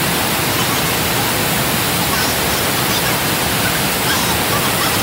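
Waterfall pouring over rocks close by: a loud, steady rush of white water.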